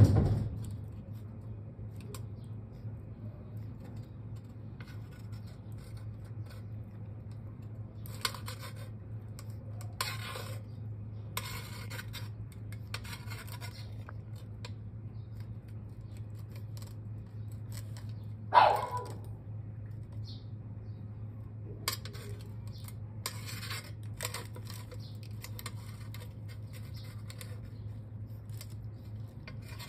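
Tortoise shell and claws scraping and rubbing against a rusty metal stovepipe in short scattered bouts, over a steady low hum. About eighteen seconds in there is one brief louder sound.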